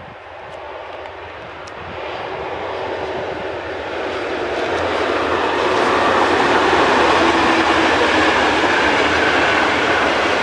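Locomotive-hauled express passenger train running over a concrete railway viaduct: a steady rumble of wheels on rail that grows louder as the train draws nearer.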